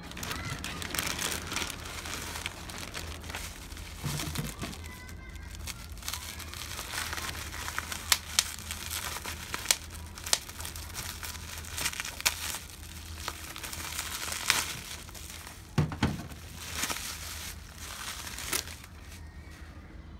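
Packaging being unwrapped by hand: continual crinkling and crackling with sharp clicks, and a few louder snaps.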